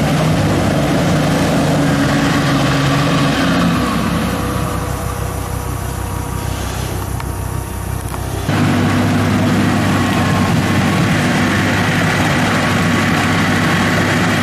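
Toyota Land Cruiser HDJ80's straight-six turbo diesel running steadily. It drops back and quietens for a few seconds midway, then switches abruptly to a louder, steady engine note about eight seconds in.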